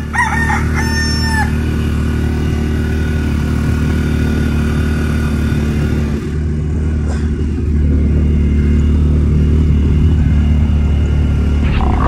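Polaris side-by-side engine running at a steady speed. A rooster crows once at the start, one held, pitched call that drops at its end.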